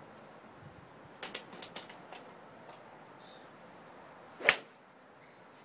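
A 3-iron striking a golf ball off a driving-range mat: one sharp crack about four and a half seconds in. A quick run of faint clicks comes a few seconds before it.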